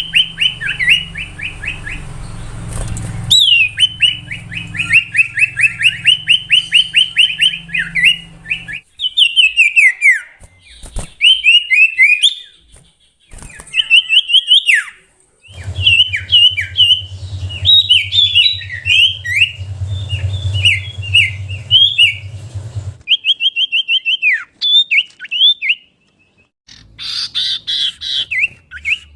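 Common iora (cipoh) singing: fast runs of sharp, down-slurred whistled notes, about five or six a second, in phrases of a few seconds with short pauses between them. A low hum sits under some of the phrases.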